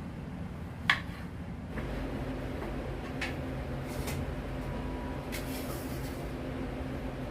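Knife strokes on a cutting board as tempe is sliced: a sharp tap about a second in, then a few fainter, sparse taps, over a steady low hum.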